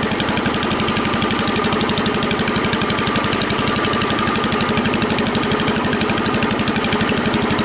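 SS14 garden tractor engine running with no throttle in third gear, its exhaust firing in a steady run of rapid, even pulses through a new upright exhaust stack.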